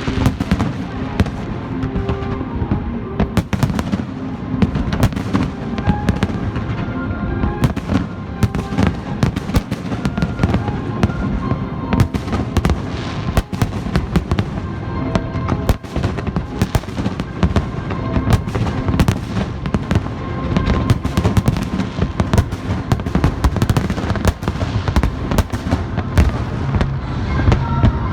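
Fireworks display: many sharp bangs and crackles in quick succession, with music playing underneath.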